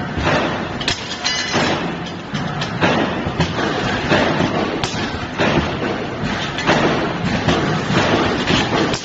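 Automatic double-torch stud welding machine at work: irregular sharp snaps and knocks from the welding heads over steady machine noise.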